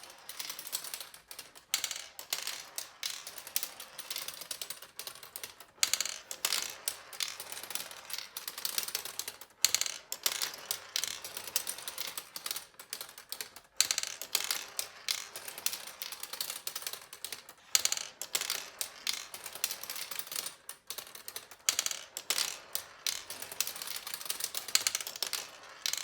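Turing Tumble marble-run computer running: one ball after another rolls down the plastic board and trips its ramps, bits and levers, making rapid, uneven clicking and clattering without pause.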